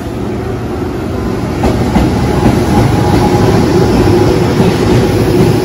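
EH200 twin-unit electric freight locomotive passing close, hauling oil tank wagons: its running noise grows louder as it draws level, with a steady hum and wheels clicking over the rail joints.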